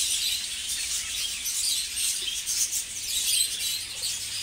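Many budgerigars chattering at once: a dense, unbroken high twittering.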